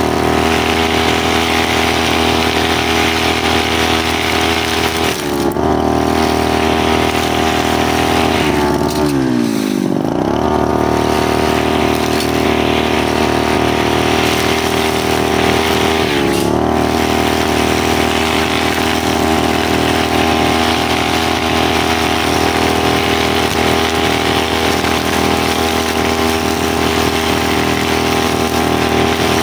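Brushcutter engine running at high revs to blow dry leaves off a road. Its pitch dips briefly about five seconds in and again about sixteen seconds in, and around ten seconds in it falls away sharply as the throttle is eased, then revs back up.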